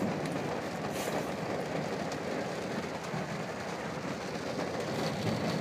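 Steady rain falling on and around a vehicle, with a low rumble of road traffic, heard from inside the vehicle.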